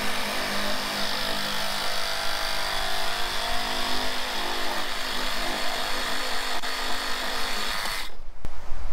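Reciprocating saw (Sawzall) running steadily as it cuts through drainage pipe, stopping abruptly near the end.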